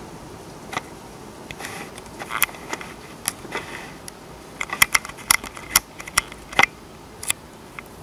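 Steady hiss of a heavy thunderstorm downpour, with a run of sharp clicks and taps starting about a second in and thickest a little past the middle.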